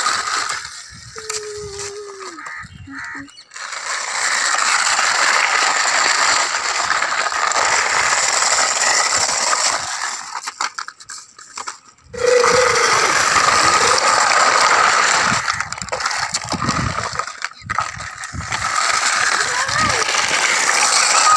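Plastic toy tractors pushed by hand over gritty, sandy concrete: a loud, rough rolling and scraping of the wheels, in long stretches with short pauses.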